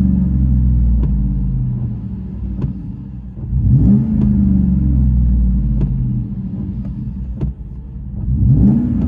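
2012 GMC Sierra's 5.3-litre V8, through a dual exhaust with a Vibrant bottle resonator, heard from inside the cab while it is free-revved standing still. The first rev is held near 3,000 rpm and sinks back toward idle, a second quick rev comes about four seconds in, and a third starts near the end. The note is deep, without raspiness.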